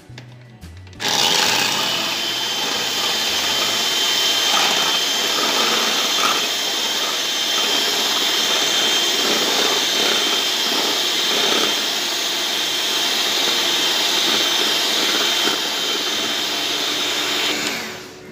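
Electric hand mixer with twin beaters running steadily with a high whine, whipping cream and milk into a thick foam. It is switched on about a second in and runs down near the end.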